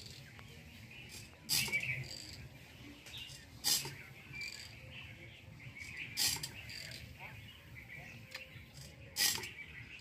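Hand-lever pesticide sprayer pump being worked, giving four short bursts of noise about every two and a half seconds as it pressurises the spray line, over faint bird chirping.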